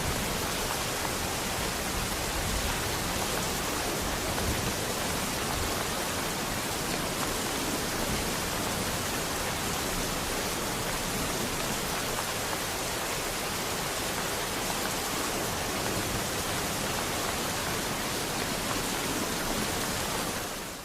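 Steady rain falling, an even hiss without single drops or thunder standing out, that fades out right at the end.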